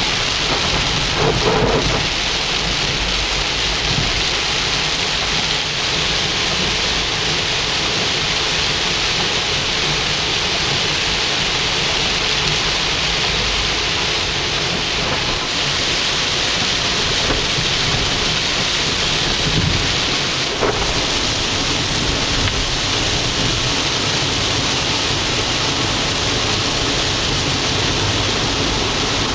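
Heavy rain coming down steadily, a dense, even hiss that holds the same level throughout.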